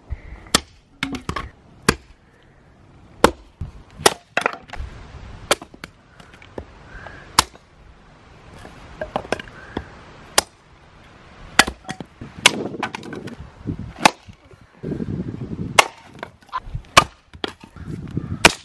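Hatchet chopping kindling: a series of sharp, irregularly spaced chops as the blade strikes and splits a short board stood on end on a stump chopping block, with the wood cracking apart.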